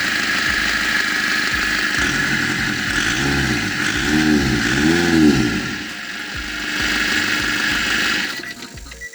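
Nissan ZD30 four-cylinder diesel running just after starting, blipped three times in quick succession in the middle, the pitch rising and falling each time. The engine sound drops away near the end.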